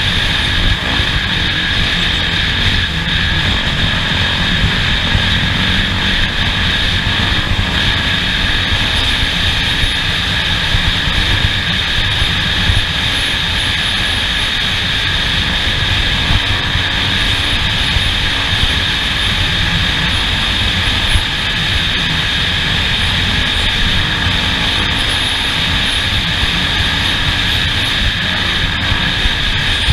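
Off-road vehicle driving the course, its engine drone and rough low rumble steady throughout with a fixed high whine.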